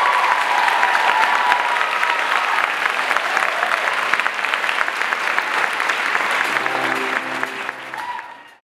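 Theatre audience applauding: a dense run of claps that eases slightly, then cuts off suddenly near the end.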